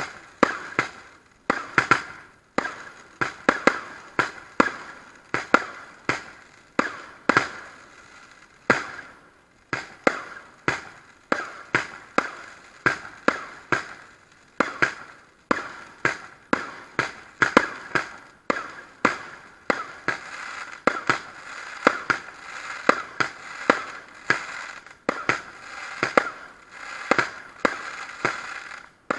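Category F2 consumer fireworks going off in quick succession: an irregular string of sharp bangs, roughly two a second. Over the second half, crackling fills the gaps between the bangs.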